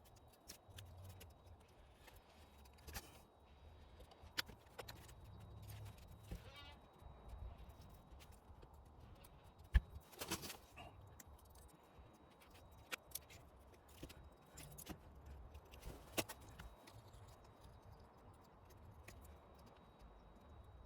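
Faint, scattered scrapes and clicks of a razor blade scraping old gasket material off a metal mating surface, with one longer scrape about ten seconds in.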